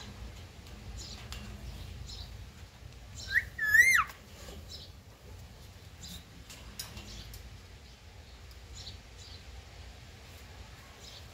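Pet parrot gives one brief squawk about three and a half seconds in: a short note, then a longer call that rises and then drops sharply in pitch. Faint scattered clicks sound on either side of it.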